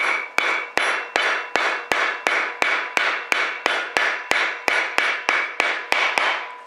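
A hammer pounding a steel hollow-punch wad cutter through felt saddle-blanket material to cut a shotgun wad: a steady run of sharp, ringing metal-on-metal strikes, nearly three a second, stopping just before the end.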